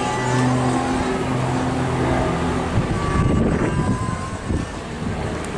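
Grob Tutor T1's four-cylinder Lycoming piston engine and propeller droning in flight through aerobatic manoeuvres, at a steady pitch for the first two and a half seconds. A brief rush of noise comes about three seconds in, and then the drone is a little quieter.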